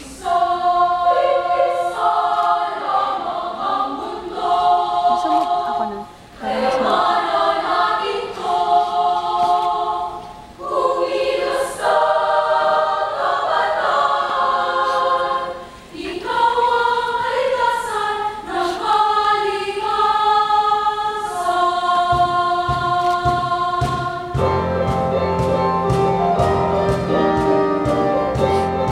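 Women's choir singing in close harmony, unaccompanied at first, in phrases with short breaks between them. About 22 seconds in, a bass line comes in under the voices, followed shortly by a steady beat.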